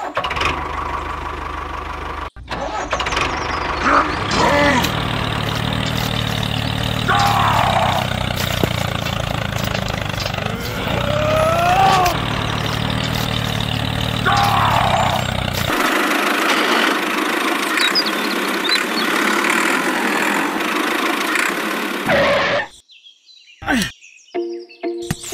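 Tractor engine sound running steadily with a low rumble, with a few short sliding squeaky tones over it. About two-thirds of the way through the low rumble cuts out and a higher whirring noise carries on for several seconds, then it drops away to a few faint clicks near the end.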